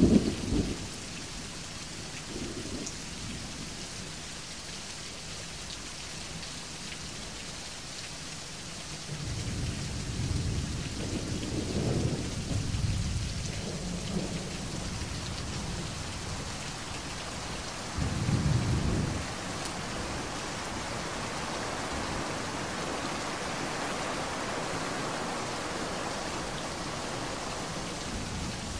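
Steady rain with rolling thunder. A thunder rumble comes at the very start and is the loudest moment. A longer rumble rolls from about ten seconds in, and a shorter one comes at about eighteen seconds.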